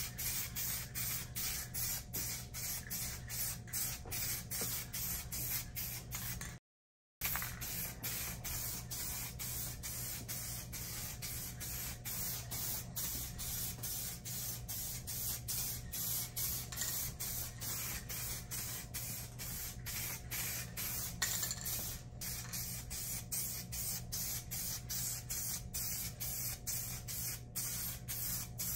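Aerosol spray can of black paint hissing as coats go on, in short passes with brief breaks about twice a second, over a steady low hum. The audio drops out briefly about seven seconds in.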